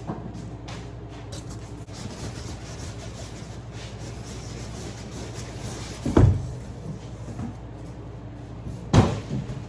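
Cardboard shipping box and packaging being handled and opened: rustling and scraping, with two heavy thumps, one about six seconds in and one near the end.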